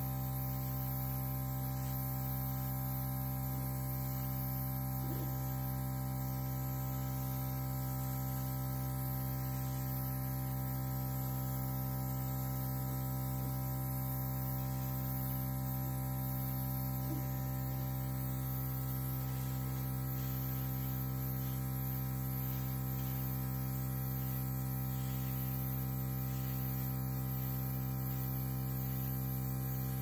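Air compressor running with a steady hum and a high hiss of air from its nozzle as it blows wet acrylic paint down a canvas.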